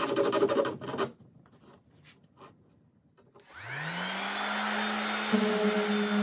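Electric random orbital sander spinning up with a rising whine, then running steadily. It gets louder and rougher a couple of seconds later as the pad is pressed onto the plywood edge. Before it, a brief rubbing on the wood edge for about a second at the start.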